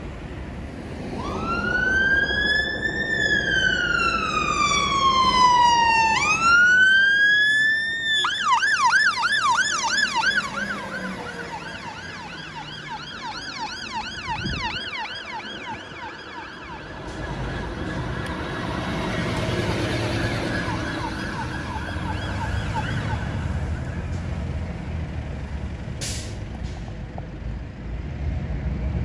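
Fire engine siren, a slow wail rising and falling twice, that switches about eight seconds in to a fast yelp and then fades away. Later a heavy vehicle's low engine rumble comes up under it.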